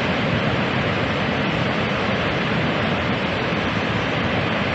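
Steady rush of the Augrabies waterfall on the Orange River, a constant even noise of falling water.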